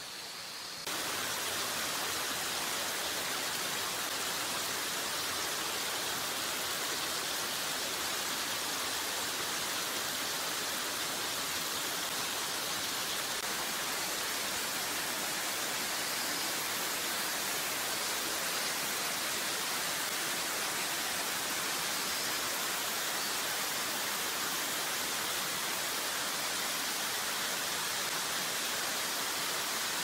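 Waterfall and mountain stream rushing over rocks: a steady, even wash of falling water that steps up louder about a second in.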